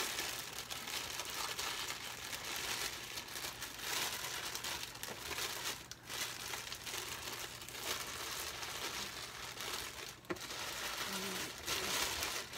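Thin clear plastic bag crinkling as it is pulled off an airbrush compressor, with brief pauses about six and ten seconds in.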